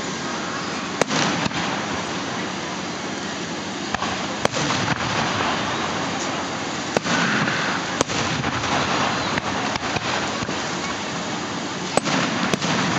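Aerial fireworks shells bursting: about ten sharp bangs at uneven spacing, over a steady background hiss.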